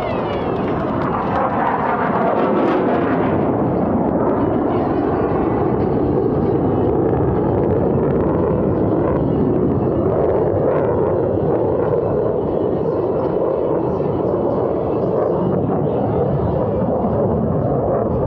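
F/A-18 Super Hornet fighter jets flying overhead: a loud, steady jet roar whose pitch falls over the first few seconds as the jets pass.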